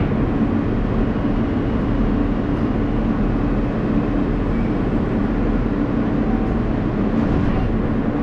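Ride noise inside an R160A subway car running between stations: a steady rumble of wheels on the rails with a low, even hum, without change in speed or pitch.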